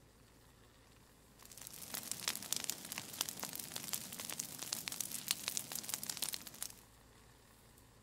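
Brush fire of dry branches and leaves crackling, with dense, irregular sharp snaps and pops over a hiss. It starts about a second and a half in and stops suddenly about a second before the end.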